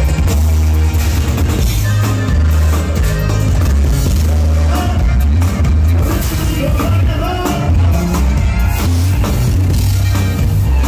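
Regional Mexican band playing a corrido live through a loud stage PA: drum kit, electric guitar and a heavy, booming bass line.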